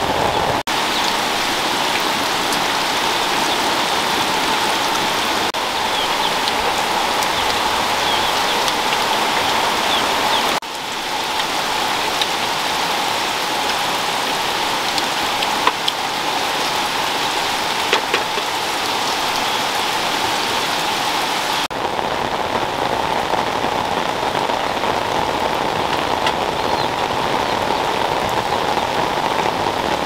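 Steady rain falling, a continuous even hiss, with a couple of brief sharp taps around the middle.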